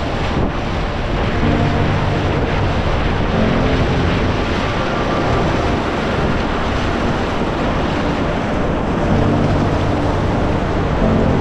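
Loud, steady rushing of whitewater rapids churning around a kayak, with wind buffeting the camera microphone.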